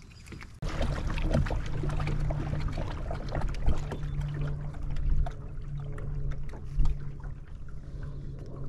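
Motorized kayak running across choppy water: water rushing and splashing along the hull and wind on the microphone, over a low steady hum. It starts abruptly about half a second in.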